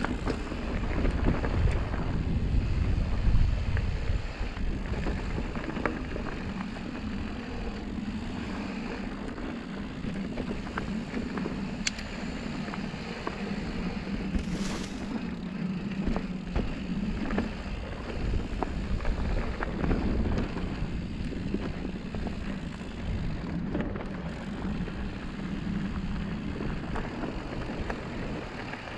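Mountain bike riding downhill on dry, rocky dirt singletrack: wind buffeting the microphone and tyres rolling over dirt and stones, with scattered clicks and rattles from the bike. The wind rumble is heaviest in the first few seconds, and a steady low hum runs through the middle.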